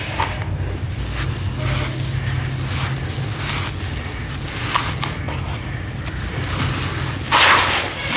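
Dry sawdust and sand clumps crumbling and crackling as they break apart into water, with a louder crunch about seven seconds in.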